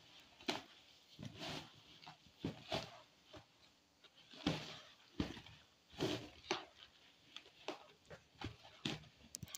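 A hand rubbing and tossing damp steamed couscous against a plastic basin: soft, irregular rustling and scraping strokes. The grains are being separated and aired between steamings.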